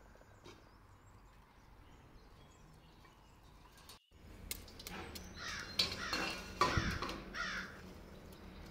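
A crow cawing about four times in quick succession, mixed with a few sharp clicks and knocks, the loudest of them louder than the calls, over a faint outdoor background.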